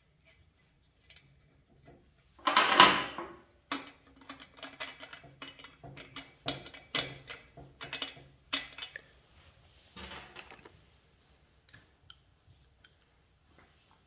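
Metal clinking and rattling from a child's bicycle chain and rear hub as they are handled, with one loud clatter about two and a half seconds in, then a run of quick clicks and taps that thins out to scattered ticks.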